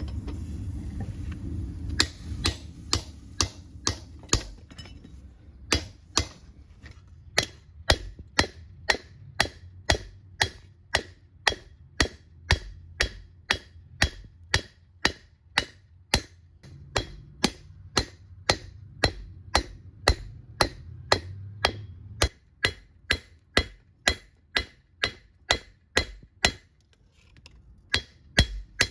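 Hammer blows on steel over an anvil, forging a lawn mower blade into a knife: sharp strikes about two a second with a light ring after each, pausing briefly near the end. A low rumble sits under the first couple of seconds and again partway through.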